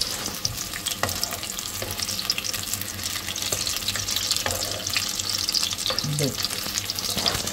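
Corn pakoras (battered corn fritters) deep-frying in hot oil in a kadhai, a steady crackling sizzle. A few clicks of a metal spatula come through as the fritters are turned in the oil.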